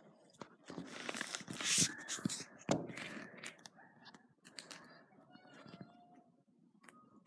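Rustling handling noise from a phone camera being swung about, with one sharp knock a little under three seconds in.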